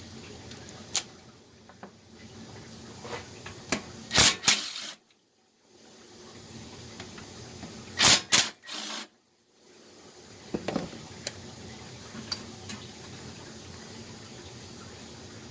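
Tools and small metal parts clicking and clinking as a small engine's gas tank is unbolted and handled. Two short loud noisy bursts come about four and eight seconds in.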